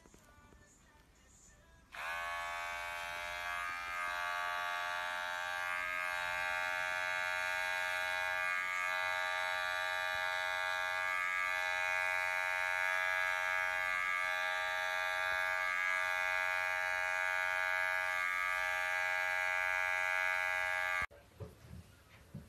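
Electric pet hair clippers switched on about two seconds in, spinning up to a steady buzz, then switched off suddenly shortly before the end.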